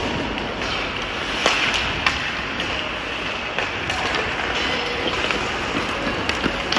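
Ice hockey play on a rink: a steady hiss of skates scraping the ice, with sharp clacks of sticks on the puck, two about one and a half and two seconds in and several more near the end.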